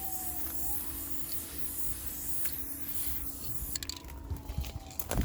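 Aerosol spray paint can hissing steadily as paint goes onto the train, with a faint whistling tone that slides down in pitch now and then. A sharp knock near the end.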